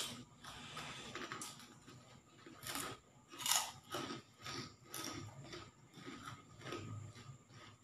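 Shells of boiled balut eggs crackling as they are cracked and peeled by hand, with chewing; a string of short crackles, the sharpest right at the start.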